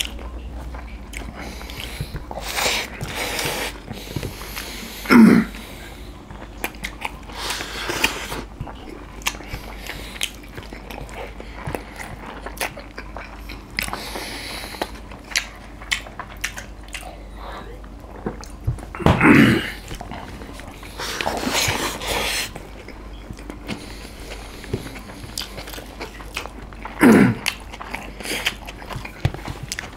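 Close-miked eating by hand: steady chewing, lip smacks and small wet clicks of rice and chicken being mouthed. Three short, louder vocal noises from the eaters stand out, about five seconds in, around nineteen seconds and near the end.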